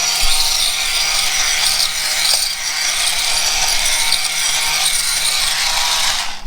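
Milwaukee M18 cordless shop vac running loudly, sucking up dirt and small debris that rattles through the hose; it cuts off suddenly at the end.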